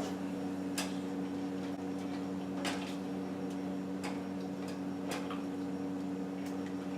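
Steady low kitchen hum with a handful of light, irregularly spaced clicks and ticks while a pot of chicken stock and pasta cooks on the stove.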